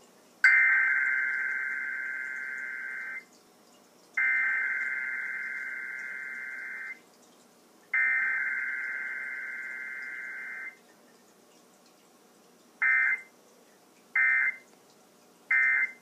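Emergency Alert System digital data bursts (SAME tones) played through a TV speaker: three long, loud, buzzy warbling bursts about a second apart, each fading slightly as it goes, then three short end-of-message bursts in quick succession. This is the coded header of a required EAS test, with no attention tone.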